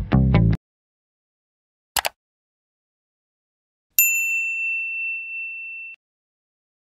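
Background guitar-and-bass music cuts off, then a single click, and two seconds later a bright bell-like notification ding that rings for about two seconds before stopping: a subscribe-button animation's sound effects.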